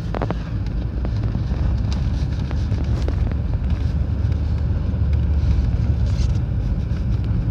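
Car cabin noise while driving on a packed-snow road: a steady low rumble of engine and tyres, with scattered light knocks from underneath the car.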